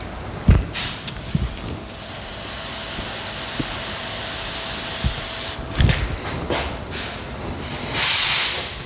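Steady hiss of air from a hand-held air tool held to the freshly painted car body. It starts about two seconds in, stops near six seconds, and comes back as a louder, shorter blast near the end. Between the hisses there are sharp rips and knocks as masking is pulled off the body.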